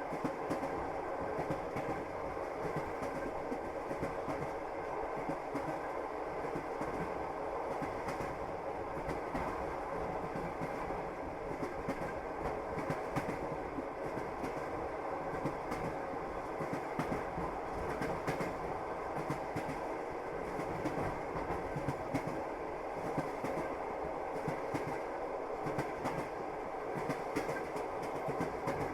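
Passenger train running along the line, heard from inside the carriage: a steady rumble with the clack of the wheels over the rail joints.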